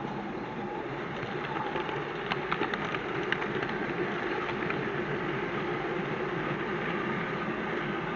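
Model railway train running along the layout track, heard close up from a wagon on the train: a steady mechanical running noise with a quick run of wheel clicks over rail joints about two to three seconds in.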